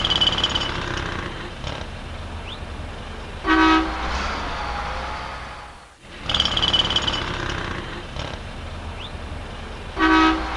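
City street traffic ambience: a steady rumble of passing vehicles, with a short car horn honk about three and a half seconds in and again near the end.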